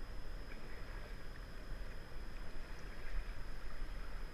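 River water and wind buffeting the microphone on a paddled whitewater raft, with a low rumble and a few faint splashes of paddle strokes.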